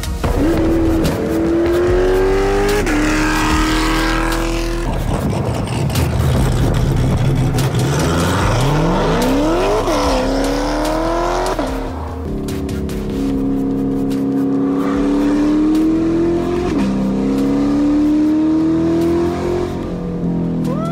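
Chevrolet Corvette C8's V8, fitted with an aftermarket camshaft, accelerating hard through the gears: the engine note climbs, then drops back at each upshift, several times over.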